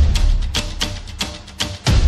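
Background music with a quick percussive beat; a heavy bass line fades out about half a second in and comes back right at the end.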